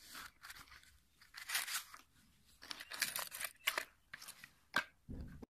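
A cardboard safety matchbox is slid open and wooden matchsticks spill and rattle out onto the cloth, heard as a series of short papery scrapes and clicks. A low thud comes near the end, and then the sound cuts off.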